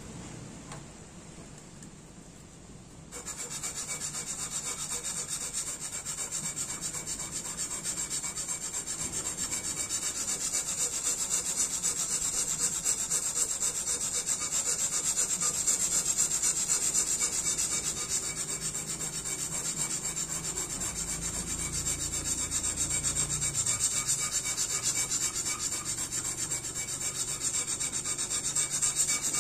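Tanto blade's kissaki being ground flat on a wet whetstone to shape the yokote. Steel rubs and scrapes on stone in continuous strokes, starting about three seconds in.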